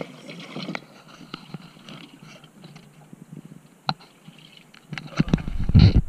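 Small scattered clicks and taps, one sharper tap near four seconds in; then, about five seconds in, wind starts buffeting the microphone with a loud low rumble.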